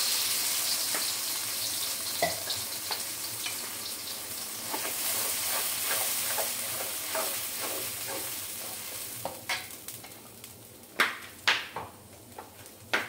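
Blended chilli-and-shallot spice paste sizzling in hot oil in a steel wok as it is stirred with a spatula. The hiss is loud at first and gradually dies down, and near the end a few sharp clicks of the spatula against the wok come through.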